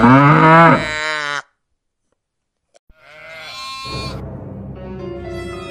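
Recorded farm-animal calls: a long cow moo, then after a pause a shorter, higher sheep bleat. Background music with steady held notes comes in about four seconds in.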